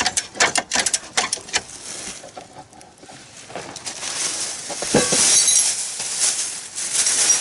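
Metal tools working on a rubber crawler track joint: a run of sharp metallic clicks and clinks, then a steady hissing noise that builds, with one heavy knock about five seconds in.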